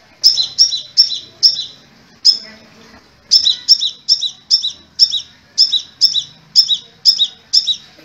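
Crimson sunbird (kolibri merah, sepah raja) calling: a steady string of sharp, high chirps, two or three a second, with a short pause about two and a half seconds in.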